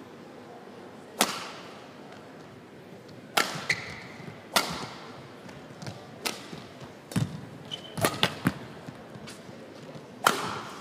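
Badminton rally: about eight sharp racket strikes on the shuttlecock, a second or two apart, with brief court-shoe squeaks between them. The loudest hit comes near the end.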